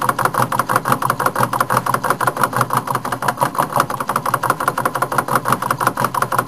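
Homemade Stirling engine running with a rapid, regular mechanical clatter, turning on stored heat after its alcohol flame has gone out.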